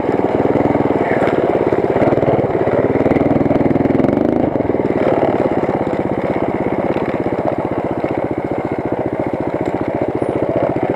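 Baja Warrior mini bike's small single-cylinder four-stroke engine running under throttle, revving up briefly about four seconds in. It then drops back to a slower, even beat near idle as the bike slows down.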